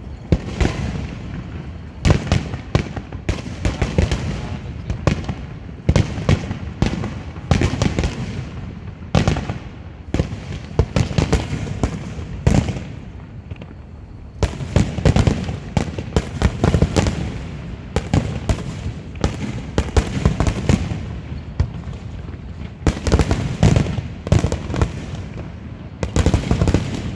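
Aerial fireworks bursting in quick, irregular volleys of loud bangs and crackles, each followed by a fading rumble, with a short lull about halfway through.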